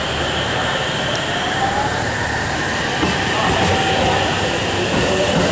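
JR 313 series electric train pulling away from the platform: its motors give a whine that rises in pitch, in steps, as it picks up speed, over the rumble of the wheels on the rails.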